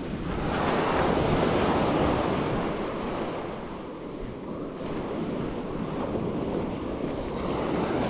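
Small ocean waves breaking gently on a sandy beach. One wash swells about half a second in and fades over the next two seconds, and another builds near the end. Wind rumbles on the microphone underneath.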